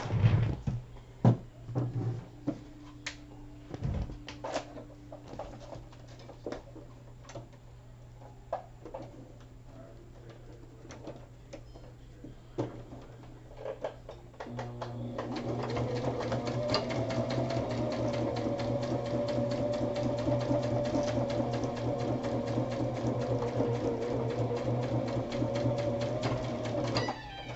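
A few clicks and knocks, then about halfway in a sewing machine starts and runs steadily for about twelve seconds, stitching a seam through layered paper envelopes, before stopping sharply.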